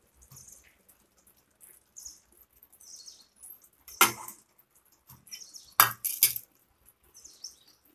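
Metal spoon scraping and tapping a small steel bowl as masala paste is emptied out of it, with one sharp clink about four seconds in and three more in quick succession around six seconds.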